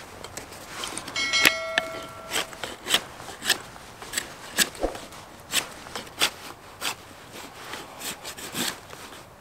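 Knife blade carving a point on a thin wooden stick: a string of short scraping shaving strokes, roughly two a second. A brief chime sounds about a second and a half in.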